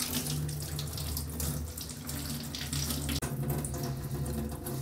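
Kitchen sink tap running steadily, water splashing into the steel basin over hands rinsing something under the stream, with a low steady hum under the rush of water.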